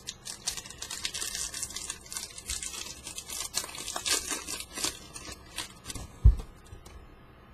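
Baseball card pack wrapper being torn open and crinkled: many quick crackles, then a single low thump about six seconds in.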